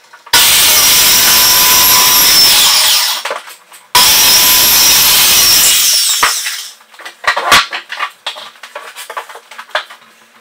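Handheld circular saw cutting through an MDF sheet in two long passes, then winding down; after it, knocks and clatter as the cut boards are handled.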